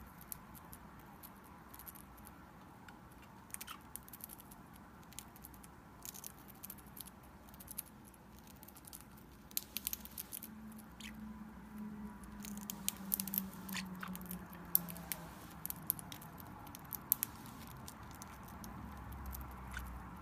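A parrot nibbling a water-softened spicy shrimp cracker held in its foot: small, irregular clicks and crunches of its beak, coming thicker in the second half.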